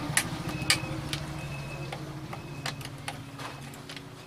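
A steady low hum with scattered sharp ticks and clicks, and brief faint high beeps roughly once a second in the first half.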